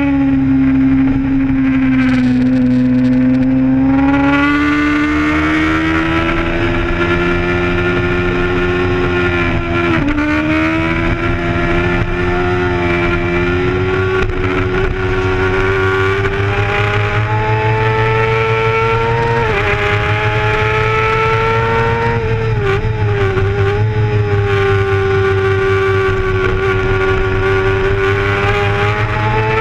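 Onboard sound of a racing sport bike's engine held at high revs under hard riding, its pitch climbing slowly with sharp dips about ten seconds in, near twenty seconds and again around twenty-three seconds.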